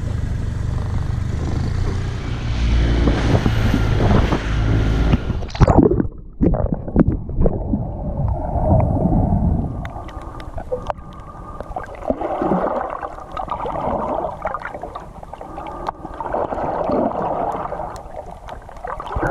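For about six seconds, wind and the low rumble of a small boat on the water. Then the sound changes abruptly to muffled underwater sound heard while snorkelling: slow swells every few seconds, typical of a snorkeler breathing, with small scattered crackles.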